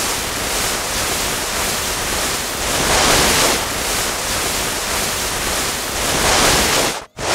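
Wind buffeting the camera microphone: a loud, rushing hiss with slow swells and a rumbling low end. It cuts out for a moment near the end.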